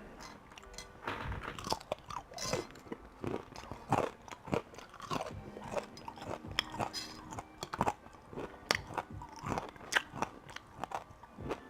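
A person chewing and crunching food close to the microphone, mukbang-style: an irregular run of crunches and mouth smacks.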